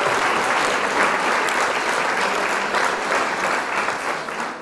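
Stock applause sound effect: a crowd clapping densely, tapering off near the end.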